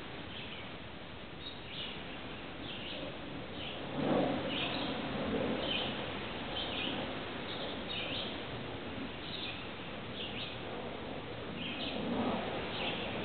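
A bird chirping repeatedly, short high notes every half second to a second, over a steady outdoor hiss. A brief louder low sound comes about four seconds in, and a smaller one near the end.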